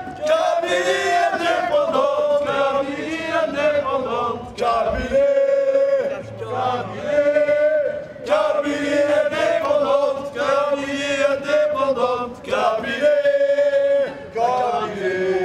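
A crowd of demonstrators chanting together in unison, in repeated drawn-out phrases with brief breaks between them.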